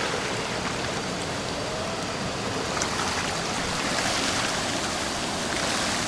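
Steady rushing of a stream at the top of a waterfall, water running over small cascades.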